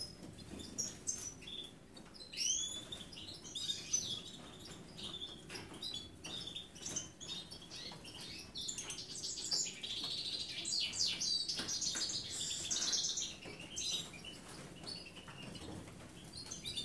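Small songbirds chirping and twittering in high, quick notes with short rising and falling glides, busiest about ten to thirteen seconds in.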